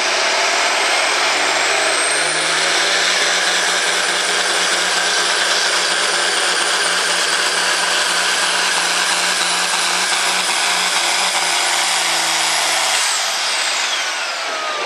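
Turbocharged diesel engine of an International Harvester farm stock tractor running at full throttle under load as it pulls the sled. A steady engine note with a high turbo whistle climbs over the first couple of seconds and holds. About two seconds before the end, the engine drops off the throttle and the whistle winds down as the pull ends.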